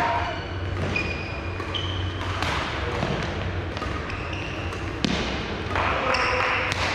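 Badminton rally in a sports hall: sharp racket strikes on the shuttlecock at irregular intervals of about a second or more, with short squeaks of shoes on the court floor.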